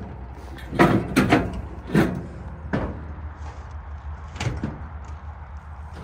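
Aluminium car-trailer loading ramps being handled and set down: a quick run of sharp metallic clanks in the first three seconds and one more about four and a half seconds in, over a low steady hum.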